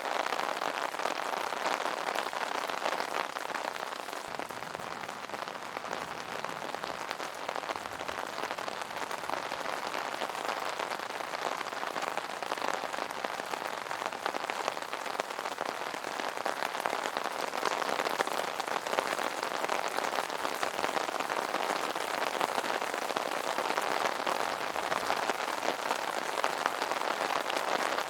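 Rain falling on an umbrella canopy: a steady, dense run of many small drop hits.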